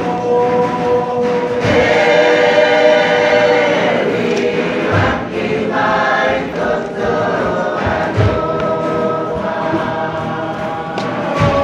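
A large mixed group of Tokelauan performers singing together in chorus, with sustained, full-voiced lines and a deep thud about every three seconds.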